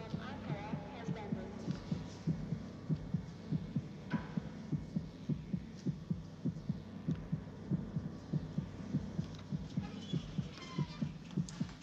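Film sound effect of a fast, even heartbeat: low double thumps that stand for a frightened man's racing pulse. Faint background voices are heard near the start and again near the end.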